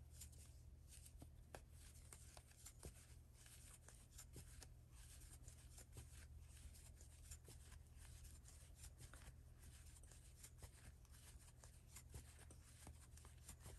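Faint, irregular little clicks and rustles of a crochet hook working yarn through stitches, over a low steady hum.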